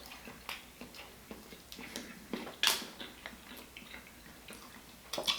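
Close-miked eating: soft wet mouth clicks and chewing, with a few sharper clicks, one about halfway through.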